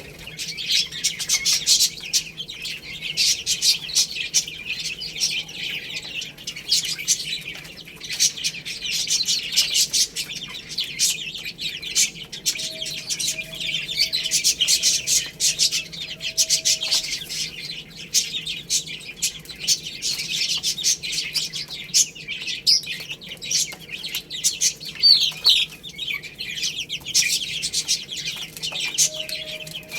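Many baby chicks peeping at once: a dense, continuous stream of overlapping high chirps.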